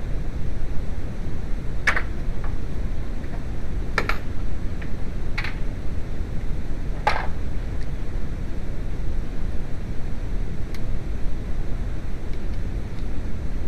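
Steady low rumbling background noise with a handful of short, sharp clicks and clinks of hand tools on metal, spread unevenly over the first half and once more near the end.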